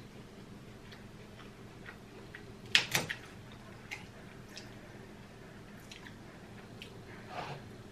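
Crab leg shell cracking as it is snapped apart by hand: a few sharp cracks close together about three seconds in, with scattered small clicks of shell before and after, and a softer crackle near the end.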